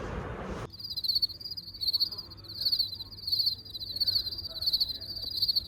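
An insect chirping in a steady, high, rapidly pulsing trill that starts abruptly about a second in, over a faint low hum.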